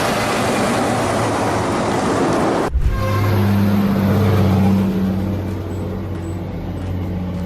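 Heavy truck on the road: road and traffic noise, then after an abrupt cut about a third of the way in, a big diesel engine running with a low steady drone.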